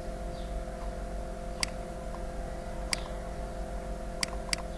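Four sharp computer-mouse clicks, a second or so apart with the last two close together, as spin-box arrows are clicked, over a steady low hum.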